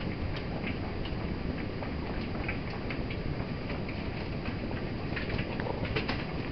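Staffordshire bull terrier puppies eating together from one plastic bowl: steady chewing and lapping, with many small irregular clicks and taps of teeth and muzzles on the bowl.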